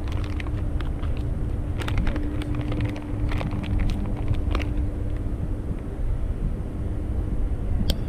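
Steady low rumble, with a steady hum that comes in about two seconds in and fades out around the middle, and a few light clicks.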